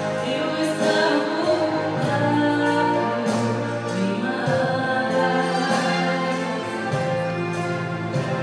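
A woman singing a Christian gospel song into a microphone, with an instrumental accompaniment.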